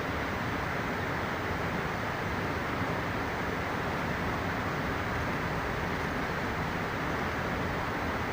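Steady, even rushing of a fast mountain river.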